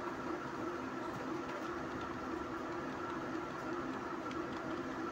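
Steady background hum with a few faint constant tones, and faint keyboard clicks as text is typed.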